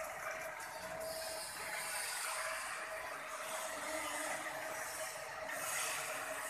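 A machine running steadily, with a constant whine over a hissing, scraping noise.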